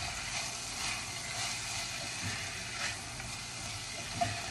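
Smoked sausage, onions, carrots, celery and garlic sizzling as they sauté in butter in a stainless saucepan, with the occasional scrape of a silicone spatula stirring them and a light tap against the pan near the end.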